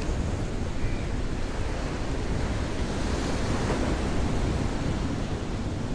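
Steady wash of sea waves breaking on a rocky shore, with wind rumbling on the microphone.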